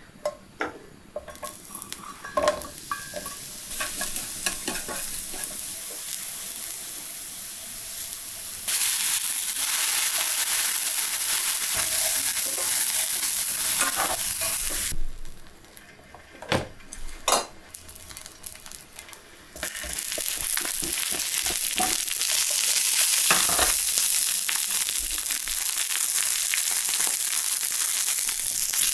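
Vegetables frying in hot oil in a cast iron skillet: a steady high sizzle, with light clicks and taps as the pieces are moved. The first stretch is mostly scattered clicks; the sizzle comes in about a third of the way through, breaks off to a few clicks for a few seconds past the middle, then resumes steadily.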